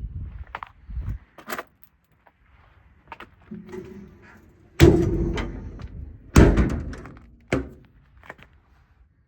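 Doors on a Ford F550 service truck being opened and shut. Two loud thunks come about five and six and a half seconds in, with smaller clicks and knocks of latches and handles around them.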